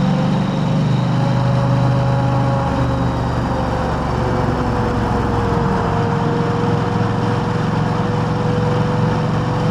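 KTM 890 Adventure R's parallel-twin engine running steadily through an Arrow aftermarket exhaust, with an even rush of road noise around it.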